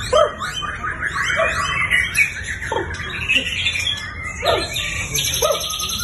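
Several caged white-rumped shamas (murai batu) singing at once: overlapping whistles, quick chirps and trills, with a dense, rapid high trill starting about five seconds in.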